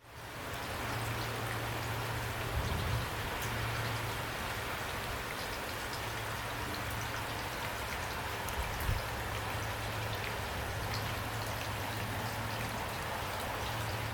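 Heavy rain falling steadily: a dense hiss with scattered individual drop hits. Underneath is a low rumble, with two soft thumps about three and nine seconds in.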